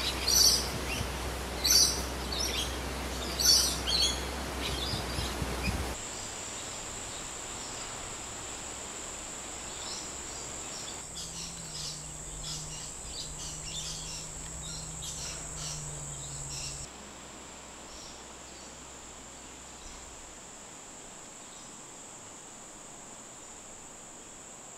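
Wild birds calling in forest, loud repeated calls every second or two, then after a cut a steady high-pitched insect drone with softer bird calls over it; the whole soundscape drops quieter about two-thirds of the way through.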